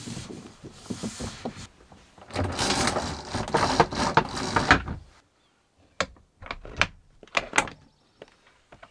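Fabric swishing as a curtain is slid aside, then a louder rustle of duvet and bedding as someone climbs out of bed. About six seconds in come a handful of sharp clicks and knocks from the camper door latch.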